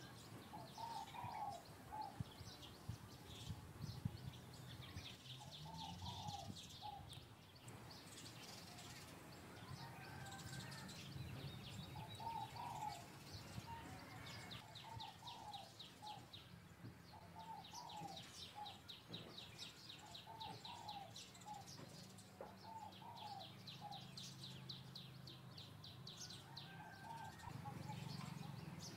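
Faint outdoor bird calls: a short call repeated every second or two, with bursts of rapid high trilling, over a low steady hum.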